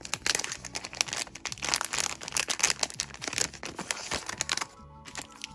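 Clear plastic packaging bag crinkling and crackling as its adhesive flap is peeled open and a set of markers is slid out. The crackling stops about four and a half seconds in, and faint background music comes in near the end.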